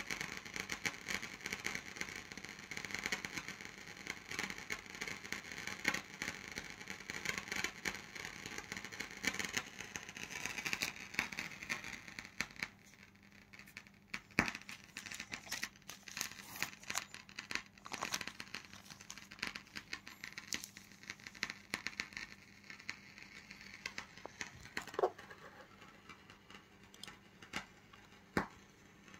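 Aluminium foil being crinkled and handled: dense, irregular crackling for the first dozen seconds, then sparser sharp crinkles and clicks.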